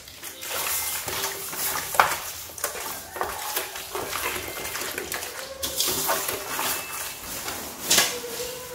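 Hands rubbing and squeezing skinned frogs with salt in a large aluminium basin: wet squelching with irregular clicks and knocks of flesh and fingers against the metal, two sharper knocks about two seconds in and near the end.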